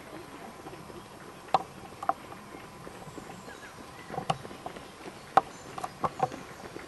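Runners' footfalls on a gravel and dirt trail: scattered, irregular steps, more of them in the second half as the runners draw near.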